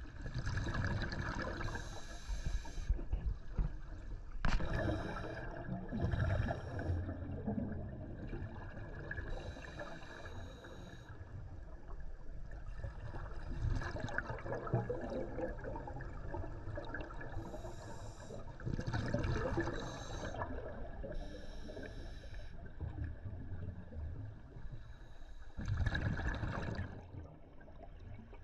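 Scuba regulator breathing underwater: the hiss of an inhalation and the gurgling rush of exhaled bubbles, one breath every few seconds.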